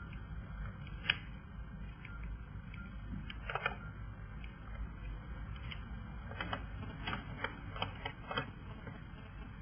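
Scattered light clicks and taps at irregular intervals over a steady low hum, the sharpest click about a second in and a cluster of them in the second half.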